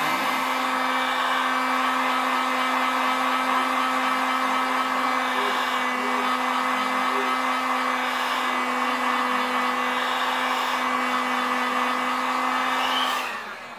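Hot-air blower running steadily over the iPad's edge to soften the screen adhesive: an even rush of air over a steady motor hum. It switches off about 13 seconds in.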